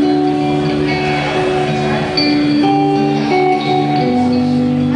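Solo electric guitar played live, letting its notes ring and sustain, with a change of chord about two seconds in and another near the end.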